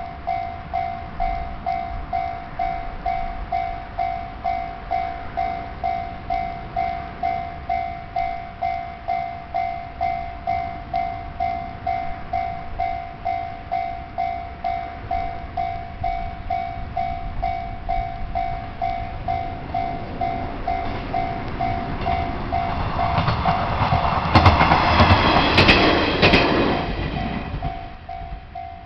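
Japanese level-crossing warning bell ringing in an even electronic ding-ding, about two and a half strikes a second, while a train approaches and passes through the crossing. The train is loudest a little past the middle, with wheels clicking over the rail joints. The bell stops just before the end as the crossing clears.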